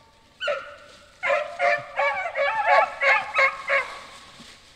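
Beagles baying as they run a cottontail's scent trail: one short yelp about half a second in, then a quick string of about eight high, overlapping barks that stops just before the end. This is the pack back on the rabbit's track.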